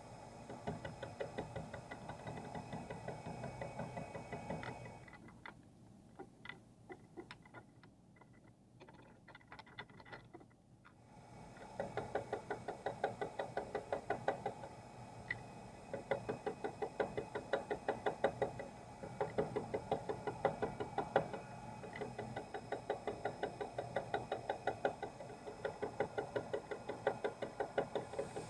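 Metal being cut on a manual milling machine or lathe, giving a rapid, even knocking over the machine's hum. It drops away for several seconds partway through, then comes back louder.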